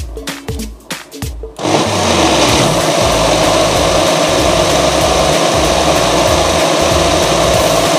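Background music with a beat for about the first second and a half, then an electric blender starts up and runs steadily, mixing a thin liquid cake batter.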